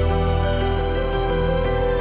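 Gentle background music with sustained chords and a low bass.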